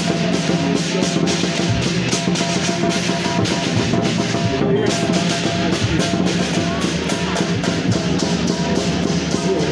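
Loud drum-led music: fast, dense drum strokes and rolls over a steady low tone, without a break.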